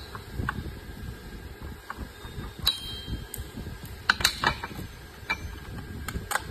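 Metal tool clicks and clinks from a socket wrench on a long extension and a hand wrench working the tie-rod bolts of a scooter's steering linkage. The clicks are scattered, with a cluster in the middle and several more near the end, over a low steady background rumble.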